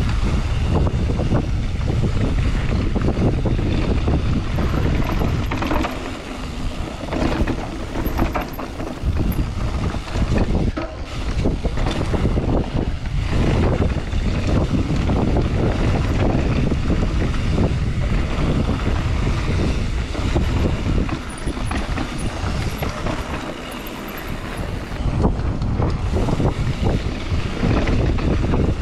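Wind buffeting the microphone of a mountain bike in motion, over a low rumble from the ride on the trail. The noise eases briefly a few times, as if the bike slows.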